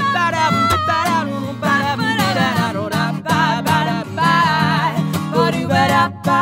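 Acoustic guitar playing under a woman's voice singing long held notes with vibrato, no clear words.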